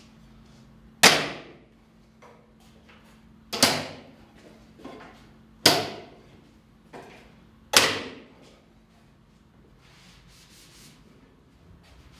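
Four sharp wooden knocks about two seconds apart, as the panels of a glued shelf unit are pressed home onto Lamello Tenso P-14 self-clamping connectors.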